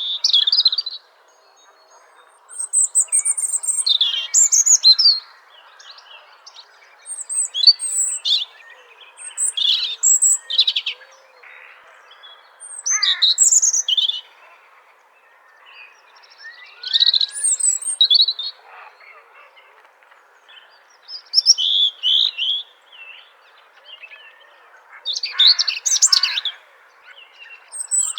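Robin singing: short, high, varied warbling phrases, each a second or two long and separated by brief pauses.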